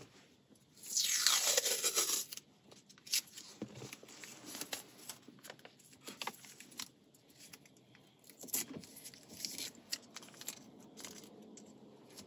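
Red adhesive tape ripping loudly for about a second, the sound falling in pitch, as a strip is pulled free. It is followed by light crinkling and rubbing as the tape is pressed and smoothed around a gear shifter knob.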